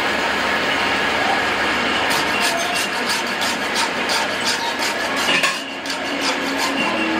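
Flat hand file rasping against a threaded metal rod turning in a lathe, in quick strokes about four a second that start about two seconds in and stop about three seconds later, over the lathe's steady running.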